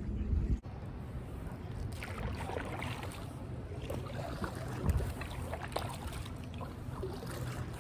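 Kayak paddle strokes splashing and dripping in canal water, with wind on the microphone and a single low thump about five seconds in.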